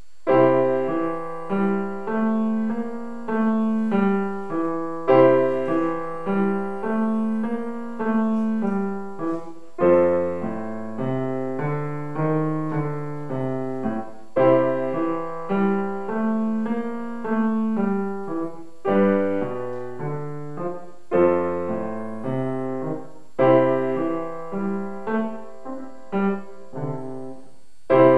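Grand piano playing a classical piece solo, starting just after the beginning, in phrases of notes with a new phrase struck every few seconds.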